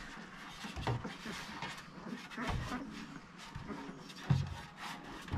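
A 13-day-old basset hound puppy wriggling on a plastic baby-scale tray: scattered light scratches, taps and rubbing from its paws and the hands steadying it.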